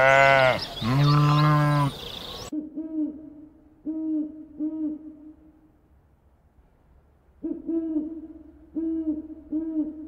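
Sheep bleating, two loud wavering bleats, cut off abruptly about two and a half seconds in. Then an owl hooting: short low hoots in two groups of about four, with a pause of a couple of seconds between them.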